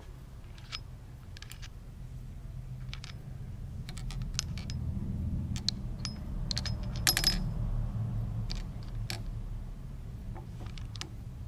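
Light metallic clicks and clinks as aluminium blocks and steel pins are shifted by hand in a mill vise, with a quick cluster of clicks about seven seconds in, over a low hum.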